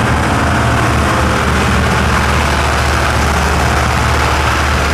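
Steady low drone of the riverboat's MWM four-cylinder diesel engines running.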